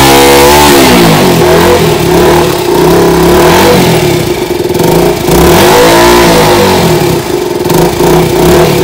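KTM RC 200 motorcycle's single-cylinder engine on its stock exhaust, idling and revved by hand three times, the pitch rising and falling with each throttle blip: at the start, about three seconds in, and about six seconds in.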